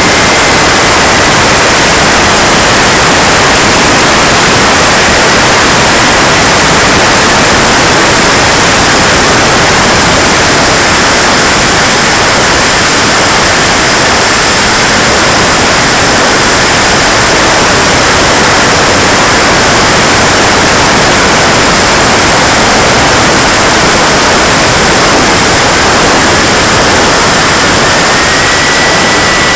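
KingTech K80 model jet turbine running: a loud steady rushing hiss with a faint high whine that sags slightly in pitch and climbs back near the end.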